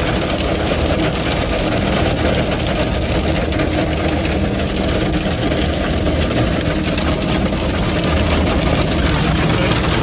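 Heavy rain and hail hitting a vehicle, a steady dense patter of fine ticks over the vehicle's running engine.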